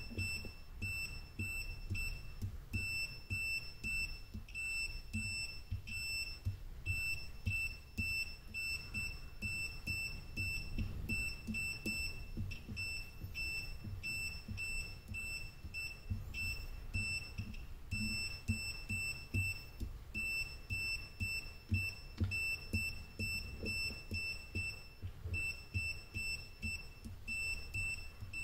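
Digital multimeter's continuity buzzer giving short, high beeps, about two a second, as the probe is touched to one battery cell after another, with light taps of the probe on the cells. Each beep confirms that the cell's solder joint is electrically connected to the bus bar rather than a cold joint.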